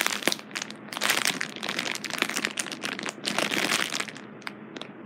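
Plastic packaging of a squishy toy crinkling as it is handled close to the microphone, dense rustling for about four seconds, then a few light clicks near the end.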